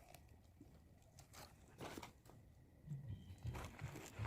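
A fire of freshly lit kindling crackling faintly as it catches, with irregular sharp pops. A low rumbling starts about three seconds in.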